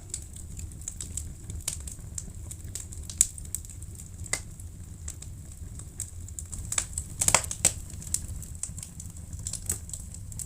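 Wood fire crackling in a fireplace: irregular sharp pops and snaps over a steady low rumble, with a small flurry of pops about seven seconds in.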